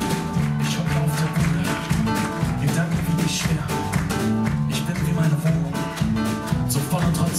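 Live band playing an instrumental passage on grand piano, drum kit and electric bass, with a steady beat.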